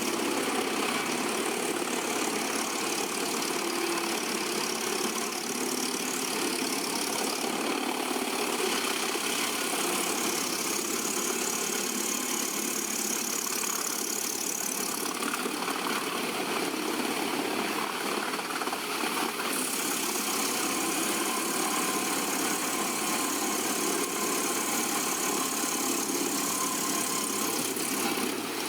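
Engine of a heavy wood-processing machine running steadily, an even, unchanging drone.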